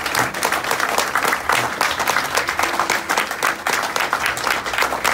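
Audience applauding: a dense, steady round of clapping from a roomful of people.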